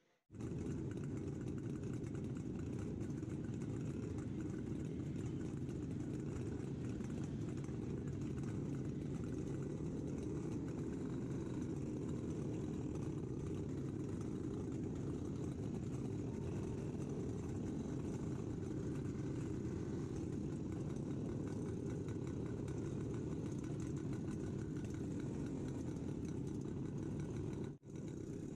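Vintage Jawa two-stroke motorcycle engine running steadily while riding, with other motorcycles running close by. The sound cuts out for a moment near the end.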